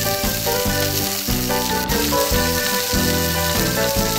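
Sizzling frying sound effect, a steady hiss, laid over background music with a steady run of melody notes and bass. It stands in for pretend stir-frying in a plastic toy pan, which makes no such sound itself.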